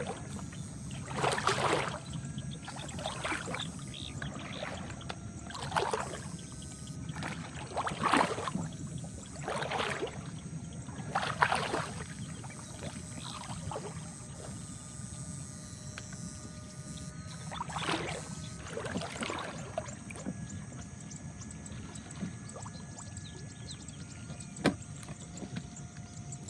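Water splashing and sloshing in irregular strokes every second or two, with a quieter stretch in the middle, over a faint steady hum. Near the end there is a single sharp click.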